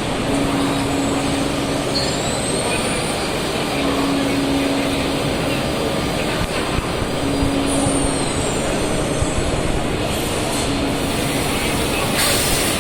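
Exhibition-hall machinery noise, with a Mazak milling machining center and its loading robot working: a steady mechanical roar with a hum that comes and goes about every two seconds and a few short rising and falling high whines.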